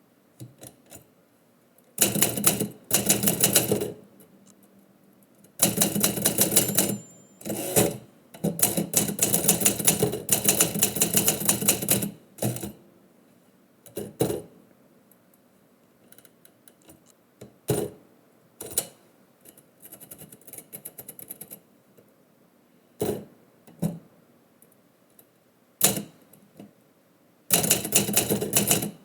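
Typewriter keys striking in quick bursts of several seconds each, with pauses and single strokes between.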